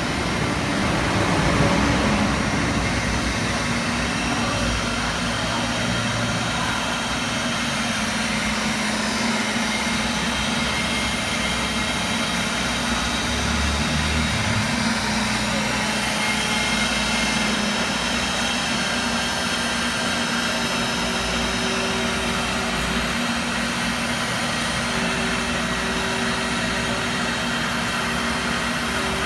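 CNC machine running steadily: a continuous mechanical hum and noise, with a steady higher tone joining in about two-thirds of the way through.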